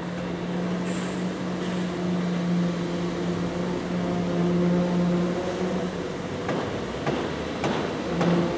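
Machinery running with a steady hum at an unchanging pitch that drops out about six seconds in and returns near the end, with several sharp knocks in the gap.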